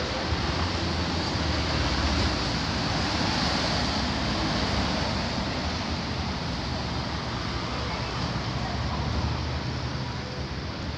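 Steady rushing outdoor street noise: wind on the microphone mixed with a low traffic rumble.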